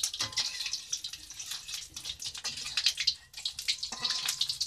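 An egg frying in hot cooking oil in a wok, sizzling steadily with many quick crackles and pops of spattering oil.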